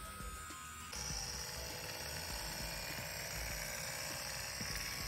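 Cyberdog gyroscopic toy's spinning flywheel whirring, still spinning after its motor is switched off. It starts as a steady thin whine, and about a second in it turns into a brighter, noisier whir that holds steady.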